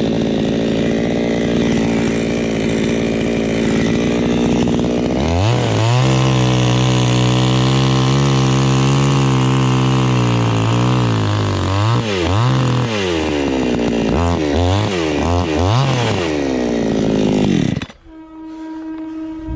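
Two-stroke chainsaw running hard; its engine note shifts about five seconds in and holds steady, then rises and falls several times before cutting off near the end. A different steady tone follows briefly.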